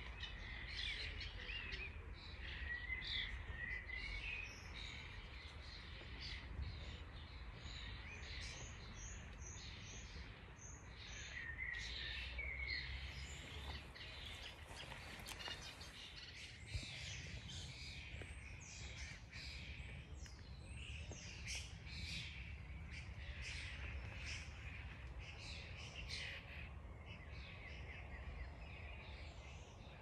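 Wild birds chirping and singing, many short high calls and trills overlapping, with a quick run of repeated high notes about eight seconds in. A steady low rumble sits underneath.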